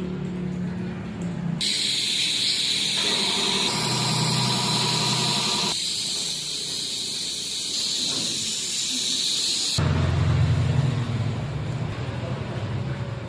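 Steady spray hiss from paint being sprayed onto the bike frame. It starts sharply about a second and a half in and stops abruptly about eight seconds later.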